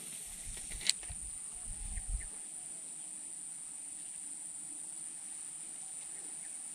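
Steady high-pitched drone of insects. A sharp click comes about a second in, and there are a few low handling rumbles in the first two seconds.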